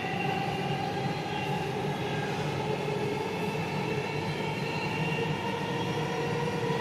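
Dubai Metro train running at speed, heard from inside the carriage: a steady rumble from the wheels and track, with a faint motor whine that shifts slowly in pitch.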